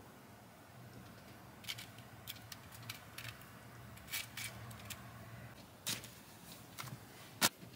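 Serving spoon scraping and tapping against a skillet and a glass casserole dish as meat sauce is spooned over tortilla chips: a scatter of light clicks and scrapes, the sharpest one near the end.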